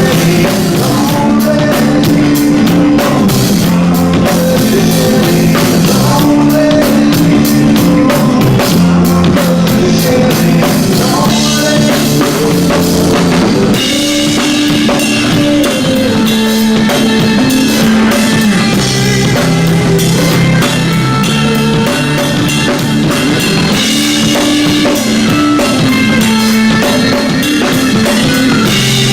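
Rock band playing live: drum kit, bass guitar and electric guitar running through a song at full volume.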